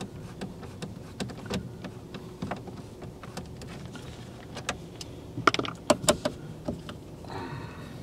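Hand screwdriver turning out the T20 Torx screws in a car's dashboard radio trim: scattered small clicks and taps of the bit and screws against the plastic. A cluster of louder clicks comes about five and a half to six seconds in, and a brief rasp near the end.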